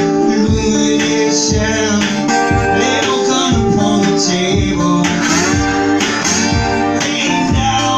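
Live duet of an acoustic guitar played flat on the lap and a concert flute: the guitar picks a steady rhythm of about two strokes a second under the flute's held notes.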